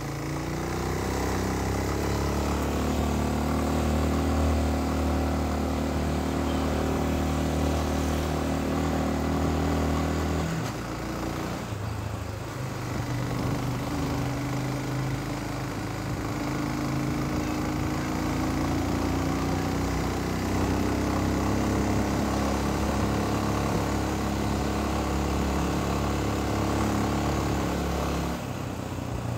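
Motorcycle engine of a France Rider dirt-bike-style bike running under throttle while riding uphill, heard close up from the handlebars. The engine note rises steadily for about ten seconds, drops away briefly about a third of the way in as if shifting or easing off, then pulls steadily again, with another short dip near the end. A steady rush of wind and road noise runs underneath.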